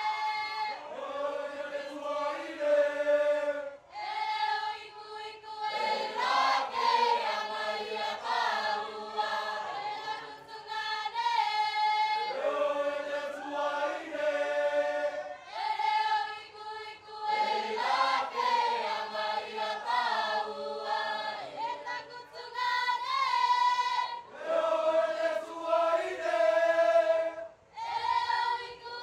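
Mixed choir of Cook Islands performers singing an imene, the Cook Islands choral chant, unaccompanied in sustained harmony. The chords are held through phrases a few seconds long, with short breaths between them.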